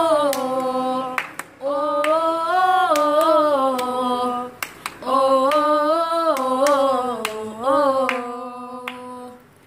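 Unaccompanied wordless singing in three long, wavering phrases, the last trailing off, with scattered hand claps keeping time.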